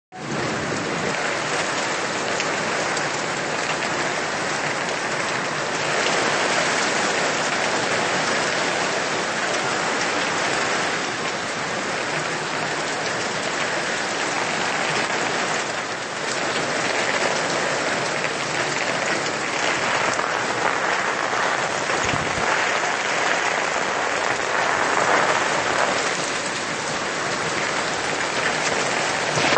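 Heavy rain pouring down steadily on a paved street.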